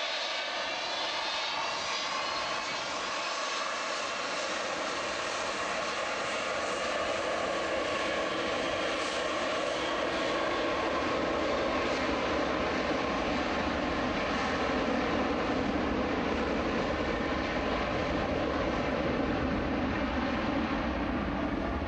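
Boeing 727's Pratt & Whitney JT8D turbofan jet engines running, a steady roar with whining tones that shift in pitch over the first few seconds, growing slowly louder toward the middle and then holding.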